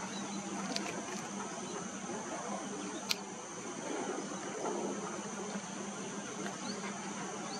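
Outdoor ambience of a steady, high-pitched insect drone over a low hum, with a few faint short bird chirps and one sharp click about three seconds in.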